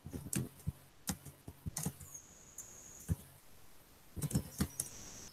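Faint scattered clicks and taps, with a quick cluster of them a little past four seconds in, over a faint thin high whine.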